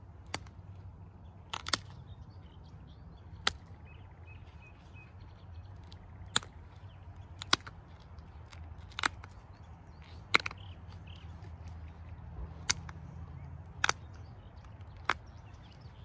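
Pressure flaking the edge of a flint knife blade with a copper-tipped pressure flaker against a leather hand pad. Each small flake snaps off with a sharp click, about a dozen clicks at irregular intervals of a second or so, twice coming as a quick double click.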